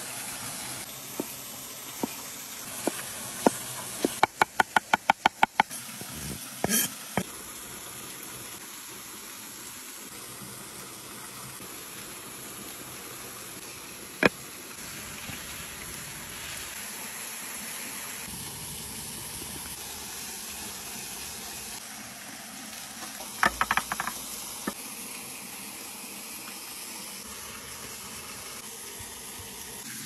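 Steady rush of running water, with knife cuts knocking on a wooden chopping board over it. The cuts are scattered in the first few seconds, then come as a quick run of about eight about four to six seconds in. Later there is one sharp knock around the middle and a short cluster of clicks a little past twenty seconds in.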